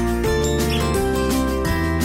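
Background music: plucked guitar over a steady beat, the chords changing about every half second.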